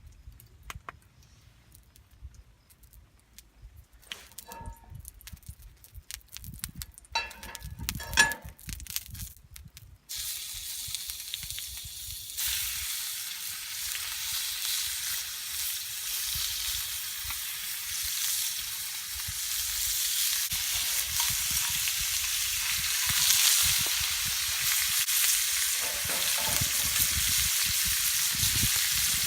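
A few scattered clinks and knocks, then about ten seconds in food hits a hot pan and starts sizzling steadily, getting louder a couple of seconds later: a stir-fry frying over a campfire.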